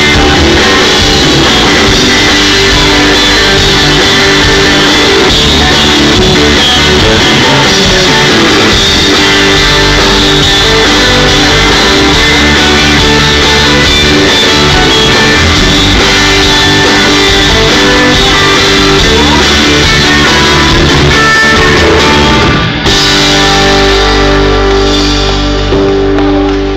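Live rock band playing loud: electric guitars, bass guitar and drum kit. About 23 seconds in, the high end drops away and held, ringing chords carry on.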